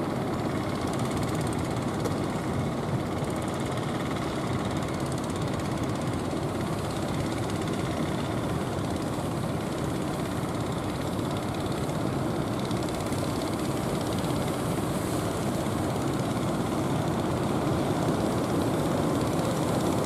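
Engines of several outrigger fishing boats running together, a steady drone growing a little louder near the end.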